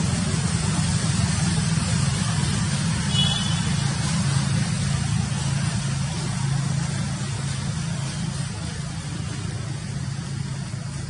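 A steady low mechanical hum, like a motor running, over a constant hiss. A brief high squeak comes about three seconds in.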